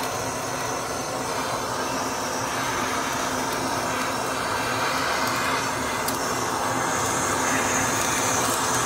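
Handheld butane torch flame hissing steadily as it is played over snake skin, burning off the scales.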